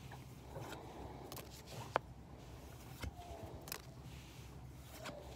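Paper trading cards being slid and flipped through in the hand: faint scrapes and soft clicks, with one sharper click about two seconds in.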